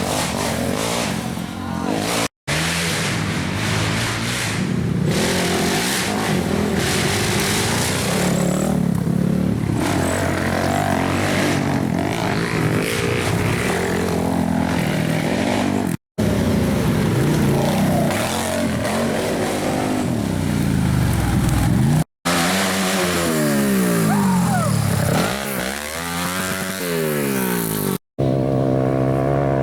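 Racing ATV engines revving up and down as quads go by, the pitch sweeping up and falling away again and again. The sound drops out for an instant four times.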